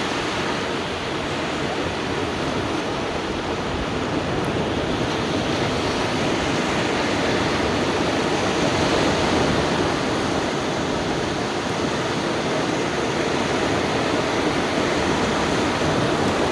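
Surf breaking on a long sandy beach: a steady wash of waves that swells a little about halfway through.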